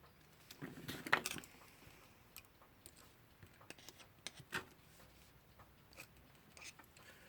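Irregular small clicks and scrapes from handling the metal parts of a Westclox Lark alarm clock movement: a cluster of them about a second in, and a sharper click a little past halfway.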